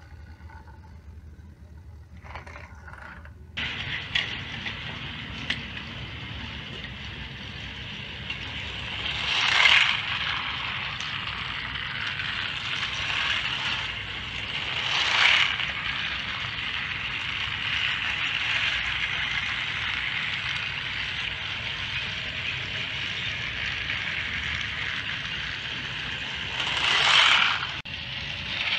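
Battery-powered motorized Thomas & Friends toy trains whirring steadily as they run along plastic track, with a few light clicks. The whir swells three times, each for about a second.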